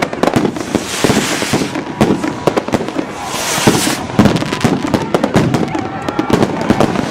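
Fireworks going off all around: a dense, continuous barrage of bangs and crackles from rockets and firecrackers, with hissing bursts in between.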